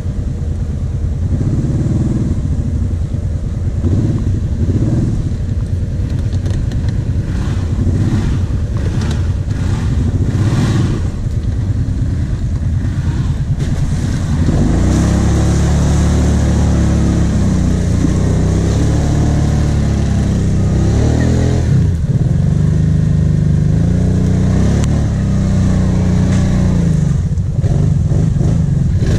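Kawasaki Brute Force 750 quad's V-twin engine running as it drives along a muddy track, with a clatter of mud and chassis in the first half. From about halfway it gets louder, its pitch rising and falling as the throttle is worked under load.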